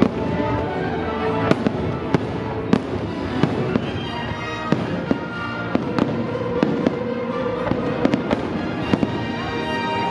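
Aerial fireworks shells bursting in sharp bangs, irregular and about every half second, over the show's music.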